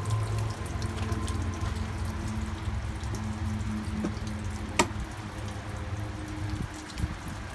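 Rain and water dripping and trickling, with a low steady hum underneath and one sharp click a little under five seconds in.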